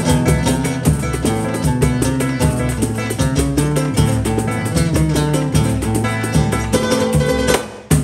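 Live instrumental samba with no singing: a strummed small guitar over a hand-played tan-tan drum and a pandeiro keeping a steady rhythm. Near the end the band breaks off almost at once, then comes back in on a single accented hit.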